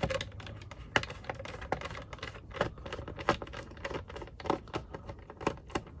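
Screwdriver working a small screw set in a plastic case, with irregular light clicks and scrapes of the metal tip against the screw and the plastic.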